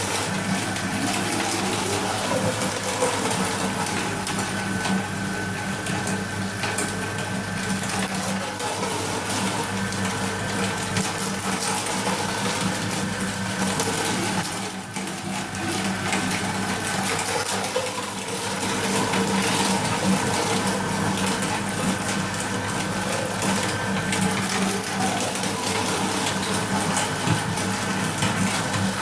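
No. 32 aluminium meat and bone grinder running steadily, its belt-driven 1.5 kW electric motor giving a low, even hum under a constant mechanical whir.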